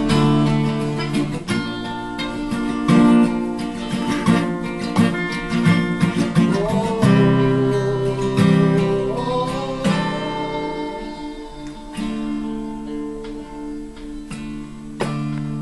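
Steel-string acoustic guitar strummed and picked in the closing bars of a song, its chords ringing. After about ten seconds the strums thin out to a few single chords left to ring.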